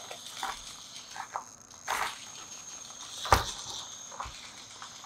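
Micro RC crawler with an Injora Fat Viper brushless outrunner motor at slow crawl: a thin, steady high-pitched motor whine, with scattered clicks and knocks as the crawler works over the course, the loudest a little past halfway.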